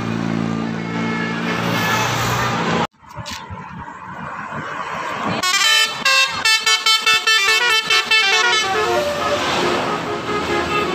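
A bus telolet horn, the multi-tone musical horn of an Indonesian bus, plays a rapid tune of stepped notes for about three seconds in the middle, over road traffic. Before it, a steady low drone from a passing vehicle cuts off abruptly about three seconds in.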